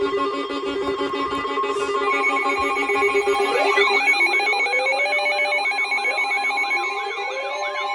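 Layered electronic alarm tones: a trilling, telephone-like ring over several steady tones, joined about two seconds in by more tones. From about three and a half seconds, siren-like wails warble up and down a few times a second over them.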